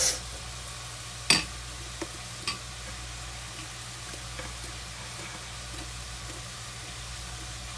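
Food sizzling steadily as it cooks, with one sharp click about a second in and two lighter clicks shortly after.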